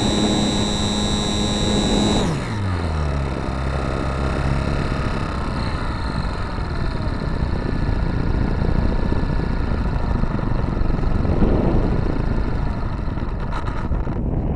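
RC Super Cub model plane's motor running at a steady high pitch with a thin whine. About two seconds in it is throttled back and its pitch drops away. After that a steady rush of wind noise takes over.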